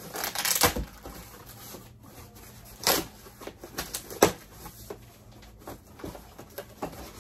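Cardboard box being opened and handled: a scraping rustle of cardboard about half a second in, then sharp scrapes or knocks about three and four seconds in, the second the loudest, with small clicks and rustles between.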